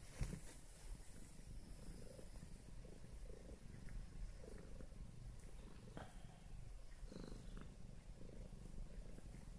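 Domestic cat purring steadily, a low rumble that swells and eases with each breath. A brief click sounds near the start.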